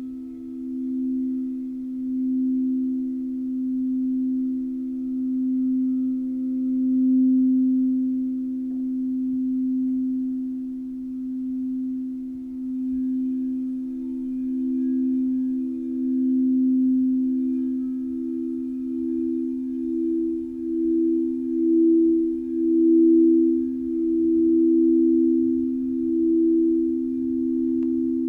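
Crystal singing bowls sounding two close, sustained pure tones together, with a slow pulsing swell in loudness that quickens in the second half.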